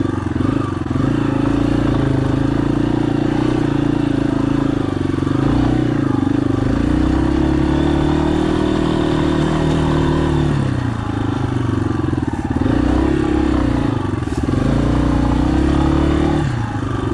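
Yamaha dirt bike's single-cylinder engine running under changing throttle while being ridden over rocky trail. The pitch falls away sharply about ten seconds in and again near the end, each time picking up again.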